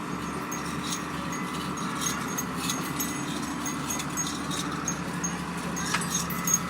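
Cattle-market background: a steady hum, with small high chimes tinkling irregularly.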